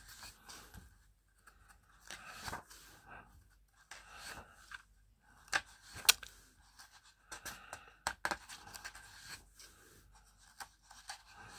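Pages of a large book being flipped by hand: paper rustling and flapping in short, irregular bursts, with a few sharper snaps of a page.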